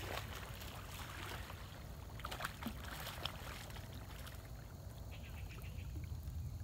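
Water sloshing and splashing as a hooked channel catfish is fought in close to the bank, with a few light clicks in the middle.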